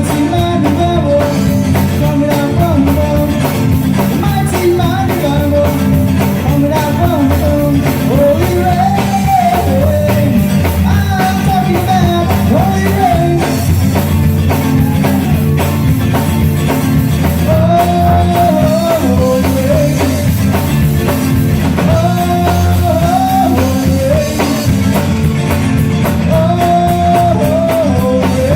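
Rock music: a full band with drums and guitar, carrying a melody line that bends and glides in pitch.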